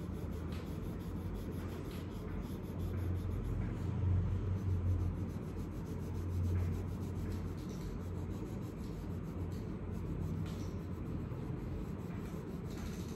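Colored pencil shading on paper: a continuous scratchy rubbing of quick strokes as the lead is worked over the page, over a steady low hum.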